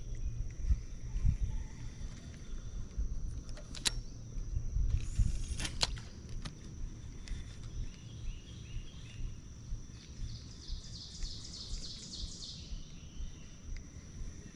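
Outdoor ambience on open water: a low rumble with a steady high whine over it, two sharp clicks about four and six seconds in, and a bird chirping for a couple of seconds in the second half.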